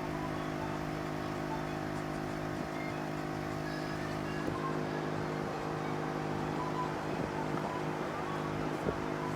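All-Top portable air compressor running steadily, with an even mechanical hum, as it pumps a 35-inch tire up toward 65 psi.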